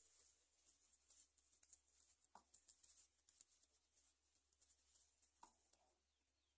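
Near silence, with a few faint scattered ticks and clicks.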